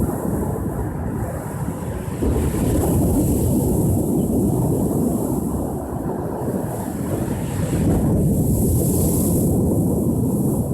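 Ocean surf washing onto the shore in a steady low rumble, with a wave surging in about two seconds in and another about eight seconds in. Wind buffets the microphone.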